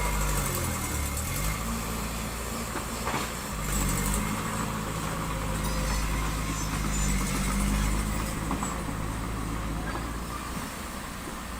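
Diesel engine of heavy construction machinery running under changing load, its pitch dipping and rising several times, with a sharp knock about three seconds in.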